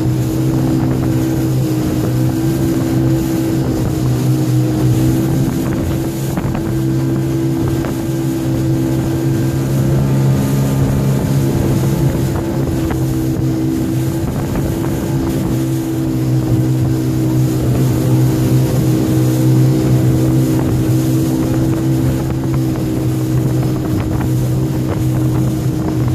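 Motorboat engine running at a steady speed, a constant even hum, with water rushing past the hull and wind on the microphone.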